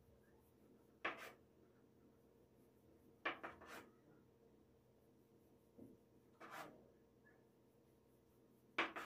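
Short wooden knocks and rubs of a thin rolling pin on a wooden board as phyllo dough is rolled out by hand, a few seconds apart, with a quick run of three knocks about three seconds in.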